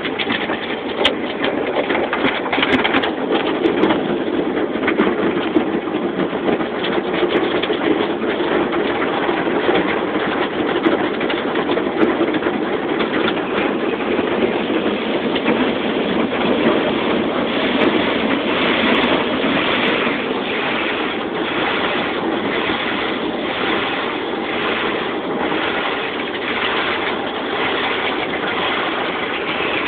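Automatic car wash heard from inside the car's cabin: water spray and rotating cloth brushes sweeping over the windshield and body, a loud steady rushing. In the second half the brush strips beat on the glass in a regular rhythm, a little more than once a second.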